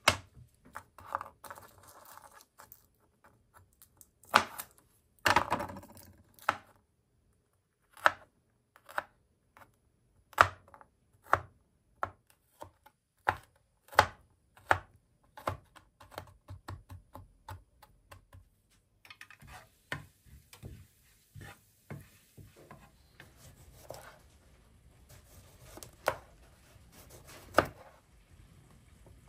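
Kitchen knife chopping garlic, then slicing cucumber, on a plastic cutting board: sharp, separate knife strikes at irregular spacing, with a quicker run of lighter taps near the middle.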